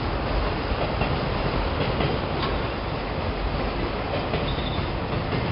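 Autorack freight cars rolling past on steel wheels: a steady rumble from wheels on rail, with a few clacks as the wheels cross rail joints.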